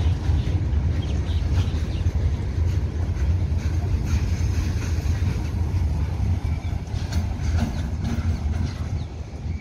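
The tail of a freight train, covered goods wagons and then the brake van, rolling past on the rails: a steady low rumble of wheels on track with light clatter. The sound eases slightly near the end as the train draws away.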